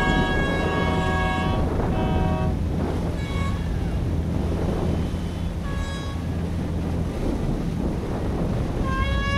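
Several boat horns blowing long, overlapping blasts of different pitches in salute, stopping about two and a half seconds in; short blasts follow around three and six seconds in, and another long blast starts near the end. Under them runs a steady low engine hum with wind and water noise.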